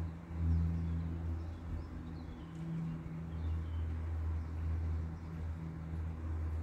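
Distant Antonov An-26 twin-turboprop airliner flying high overhead: a low, wavering propeller drone that swells and fades, with faint bird chirps.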